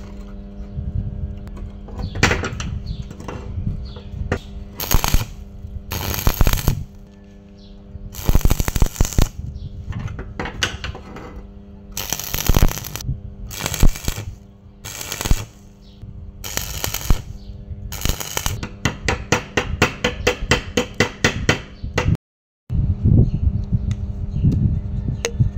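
Stick (arc) welding with a homemade electrode holder: the arc is struck again and again, crackling and sizzling in short spurts of about a second, then a quick run of rapid crackles near the end, over a steady low hum.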